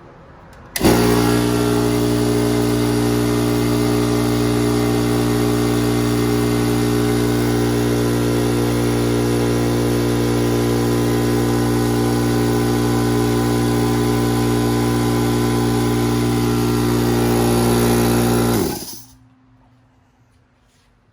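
Single-stage electric air compressor switching on, running steadily under load, then shutting off with a falling wind-down near the end.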